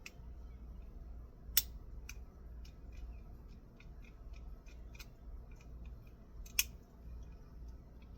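Metal hand tools working on wiring in an electrical panel, undoing a 240-volt circuit: two sharp snaps about one and a half seconds in and near the end, with lighter irregular clicks and ticks between them.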